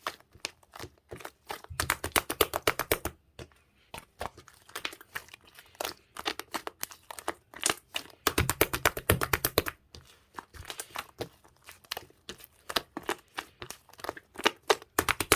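Slime being squeezed and pressed by hand, making trains of small clicking pops as air pockets burst. There are longer, faster runs of clicks about two seconds in and again around eight seconds in.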